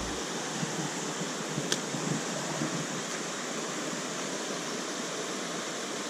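Small mountain stream running over a shallow riffle: a steady, even rush of water, with one faint click near the two-second mark.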